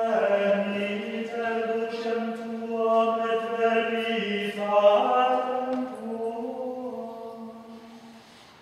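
Gregorian chant of the Introit sung during the incensation of the altar at a Latin High Mass: long held notes that move slowly from pitch to pitch, fading away near the end.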